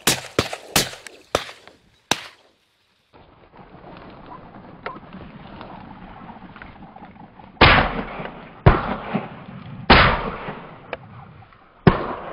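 Shotgun shots at a flushing covey of Hungarian partridge: a quick run of sharp cracks in the first two seconds, then four louder shots with fading tails, one to two seconds apart, in the second half.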